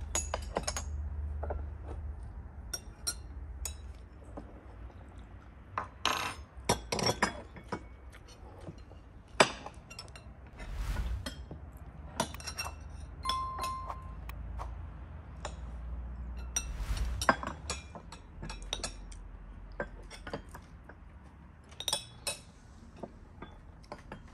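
Teaspoons and forks clinking against glass tea cups, saucers and china plates, in light, irregular clinks, with one brief ringing ting about halfway through.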